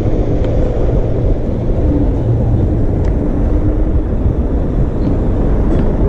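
Wind and tyre noise from an electric scooter coasting downhill at speed: a steady rushing noise with a faint hum that comes and goes.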